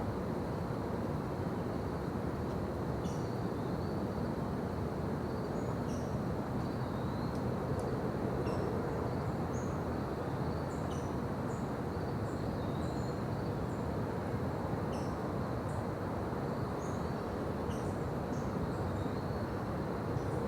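Forest daytime ambience: a steady low rushing background with many short bird chirps and brief calls scattered throughout, over a faint steady high insect-like tone.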